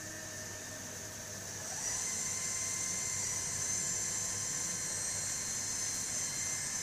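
Tornos Deco 13a Swiss-type CNC lathe running under coolant spray, a steady high-pitched machine whine with a wash of splashing coolant. About two seconds in, a tone rises in pitch and the whine gets louder, then holds steady.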